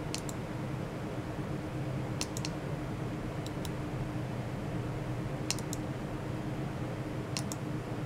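Computer mouse buttons clicking in quick pairs and triples, a group every second or two, over a steady low hum.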